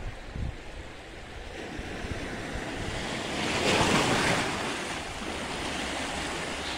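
Sea waves breaking and washing over a rocky shore, one surge swelling to a peak about four seconds in and then easing. Wind buffets the microphone.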